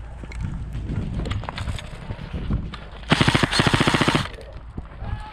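Airsoft gun firing one rapid full-auto burst of about a second, roughly fifteen shots a second, about three seconds in; fainter scattered knocks and rustling around it.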